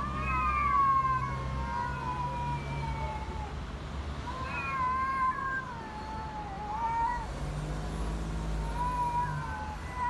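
A cat yowling: three long, drawn-out wavering calls, each lasting about three seconds, with short pauses between.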